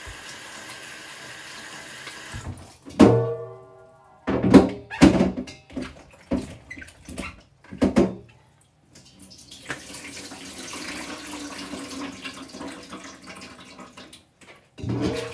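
Water running from a kitchen tap into a sink as bananas are rinsed under it. In the middle come several loud knocks and clatters, and then the water runs steadily again.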